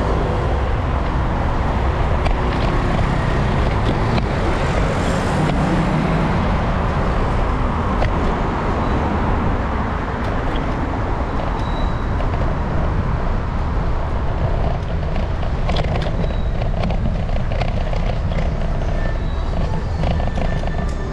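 Steady city street traffic noise, dense and even with a strong low rumble, with a few faint clicks in the last third.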